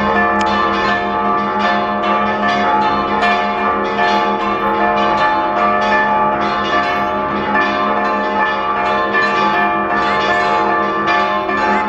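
Church bells rung in a rapid festive repique: several bells struck by turns several times a second, their tones overlapping and ringing on without a break.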